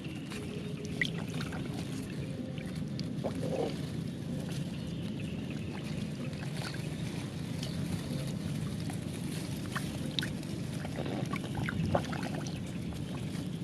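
Shallow water in a flooded rice field sloshing and splashing steadily, with scattered small splashes and clicks; the sharpest come about a second in and near the end.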